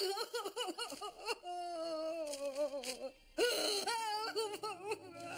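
A woman sobbing and wailing in wavering, broken cries, with one long falling wail in the middle.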